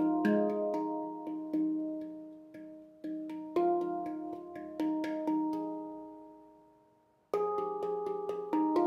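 Background music of a handpan being played: struck steel notes ring out at several pitches and slowly fade. The notes die away almost to silence about seven seconds in, then a new phrase starts.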